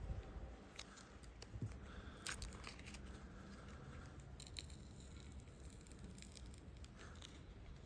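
Faint scattered clicks and crinkly scraping of hand tools prying at a smartphone's innards, the sharpest click about two seconds in.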